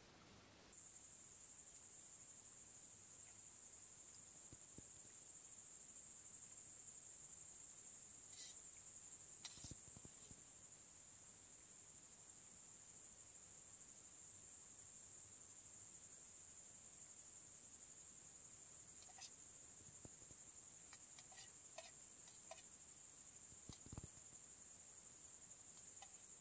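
Crickets trilling in a steady, unbroken high-pitched chorus. A few faint ticks and one soft low thump come near the end.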